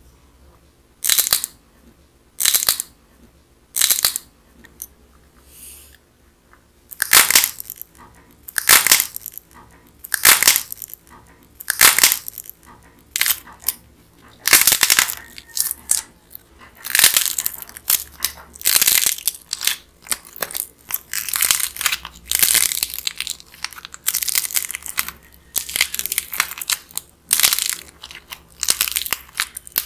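Dried clay shaped as a bread bun being squeezed and torn apart by hand: its crust and fluffy white inside crack with crisp crackling and tearing. A few spaced cracks come first, then repeated bursts about every second, closer together in the second half.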